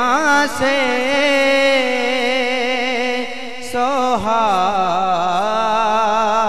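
A man singing a naat into a microphone: long, drawn-out phrases with wavering, ornamented held notes. One phrase ends and a new one begins about four seconds in.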